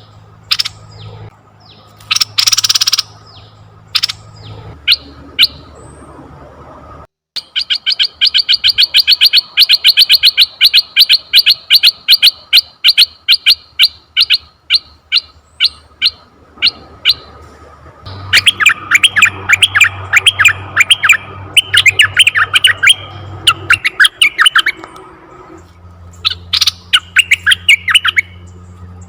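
Asian red-eyed bulbul calling: scattered harsh calls, then after a brief break about seven seconds in, a long run of rapid high chirps, followed by a faster warbling chatter.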